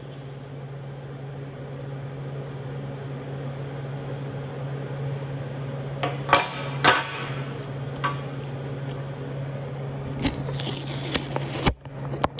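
MIG welder arc burning steadily on a flat butt weld, a low hum under an even crackling hiss, with a few louder pops of spatter around the middle; the arc cuts off abruptly just before the end.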